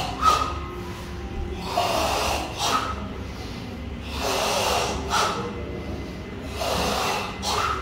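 A group of karate students breathing forcefully in unison during a slow kata: long, loud breaths, about one every two and a half seconds, some ending in a short rising hiss.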